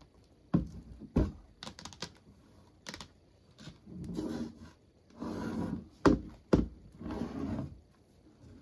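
A shrink-wrapped MacBook box being handled and turned on a desk: a string of sharp taps and knocks against the box, with short stretches of rubbing and scraping of the plastic-wrapped cardboard in between.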